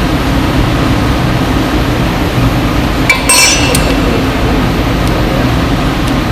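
Steady, loud machinery drone, with a single ringing clink of metal against metal about three seconds in.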